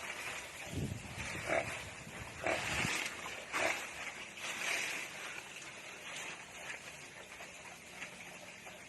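Native pigs grunting and squealing in short calls, about one a second through the first five seconds, then fainter.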